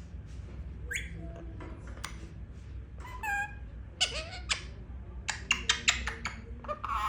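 Pet parrot vocalizing: short squeaky whistled calls that slide in pitch, then a quick run of sharp clicking chirps.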